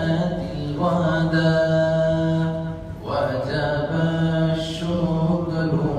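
A man singing an Urdu hamd, a song in praise of God, solo into a microphone. He holds long, drawn-out notes in two phrases, with a short breath about three seconds in.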